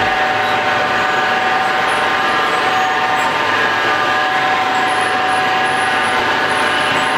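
Tortilla-making machinery (dough mixer and tortilla press with its conveyor) running: a steady mechanical drone with several whining tones held at an even pitch.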